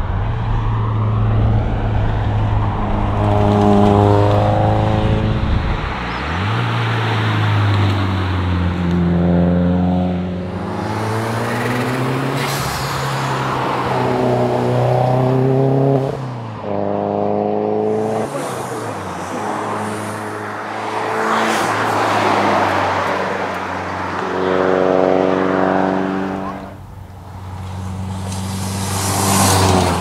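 Subaru WRX rally car's turbocharged flat-four engine accelerating hard through the gears at several passes. The revs climb and fall back repeatedly at each gear change, with a rushing hiss as the car goes by.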